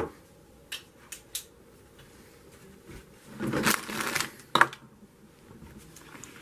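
Small sharp clicks and a brief rustle from hands handling LEGO minifigure pieces and their plastic packaging: a quick run of clicks about a second in, a rustle a little past the middle, then one more click.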